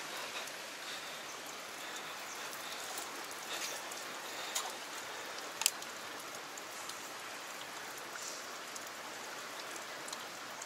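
Steady rush of a rocky stream's flowing water, with a few short sharp ticks, the loudest a little over halfway through.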